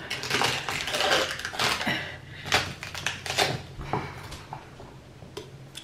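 Chef's knife chopping celery on a wooden cutting board: a quick, uneven run of knife strikes that thins out near the end.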